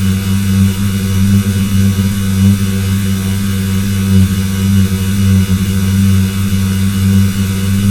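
Loud, steady electrical buzz: a low hum with a rough edge.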